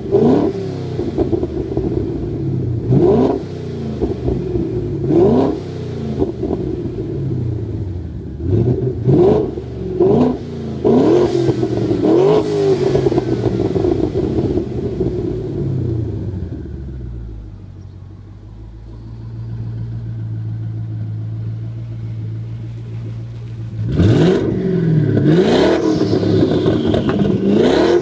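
Twin-turbocharged 2011 Mustang GT's 5.0 L V8, breathing through a cat-back exhaust with electric cutouts, free-revved while stationary: a series of quick blips, each rising and falling in pitch. About two-thirds of the way in it settles to a steady idle for several seconds, then the revving picks up again near the end.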